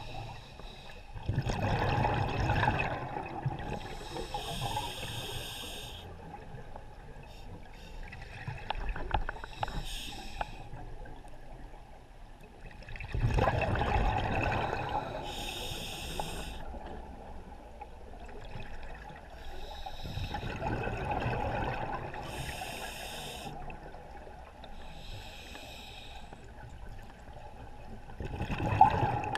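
Scuba diver breathing slowly through a regulator underwater: each exhalation is a rumbling gush of bubbles lasting a couple of seconds, followed by the hiss of an inhalation through the regulator, about every seven to eight seconds.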